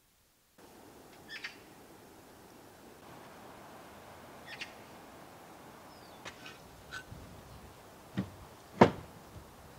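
Old red bricks knocking as they are handled at a wooden truck bed: two sharp clunks near the end, the second the loudest. Birds chirp briefly a few times before them.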